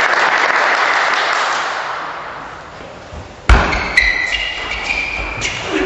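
Spectators applauding a won point, fading away over about two seconds. A table tennis rally follows with sharp celluloid ball hits on bat and table, along with high squeaks of shoes on the hall floor.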